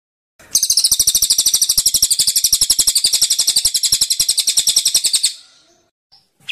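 A caged songbird giving a fast, high, rattling trill of about a dozen even notes a second. It starts about half a second in and stops after about five seconds.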